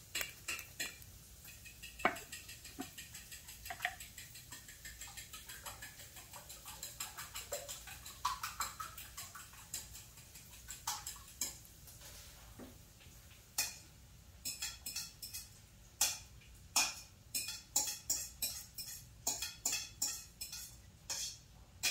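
Light, irregular glass clicks and taps from a small glass essential-oil bottle knocking against the rim of a small empty glass bottle as oil is dripped into it. The clicks come sparsely at first and thicken to a quick, uneven run of taps in the last several seconds.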